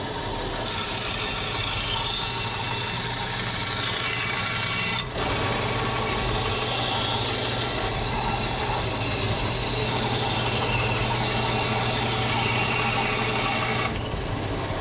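Sears Craftsman 10-inch motorized band saw running with a steady motor hum, its blade cutting through a small wooden block. The cutting noise breaks off briefly about five seconds in and stops near the end, while the saw keeps running.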